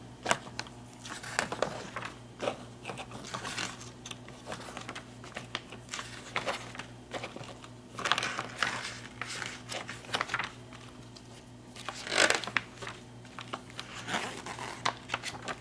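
Paper pages of a booklet being turned and handled, rustling and crinkling, with louder page flips about eight and twelve seconds in.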